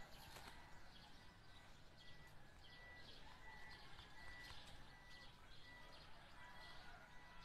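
Near silence with faint birds chirping: one short high note repeats about every three-quarters of a second, with scattered twittering above it.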